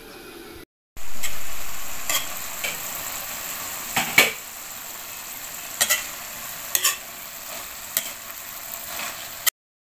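Kangkong and pork frying in a wok with a steady sizzle, while a spatula scrapes and clacks against the pan about once a second as it is stirred. The sound cuts off suddenly near the end.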